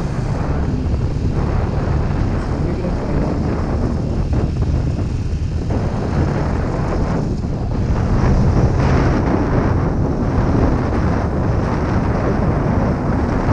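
Suzuki Gixxer 155's single-cylinder engine running steadily under way, with wind rushing over the microphone.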